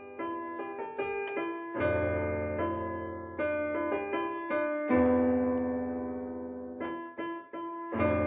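Outro music: piano or electric keyboard playing a slow melody with chords, each note struck and left to fade.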